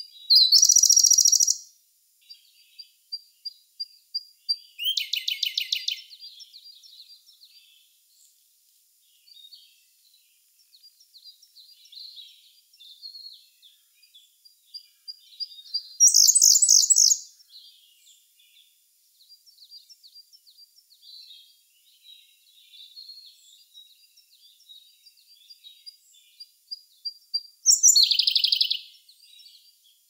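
Siberian blue robin singing: four loud, high, rapid trilled phrases, each about a second long, the later ones led in by a few soft ticking notes. Faint bird chirps fill the gaps between phrases.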